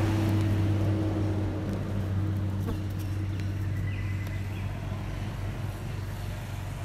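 Steady low drone of a running motor that slowly fades, with a few faint high chirps about four seconds in.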